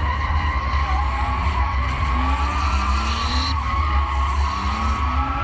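FSO Polonez cars drifting: the tyres squeal steadily while the engines rev, their note rising a few times.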